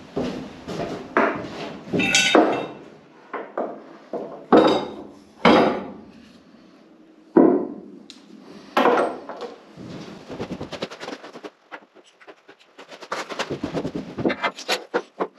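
Irregular knocks and clanks of hard objects being handled and set down, some ringing briefly, then a fast flurry of small clicks near the end.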